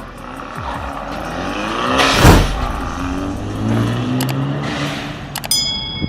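Modified 1.6 turbocharged Kia Cerato engine revving, its note rising to a peak about two seconds in, where a short loud hiss bursts out, then wavering as it settles. Near the end a sharp click is followed by a ringing tone.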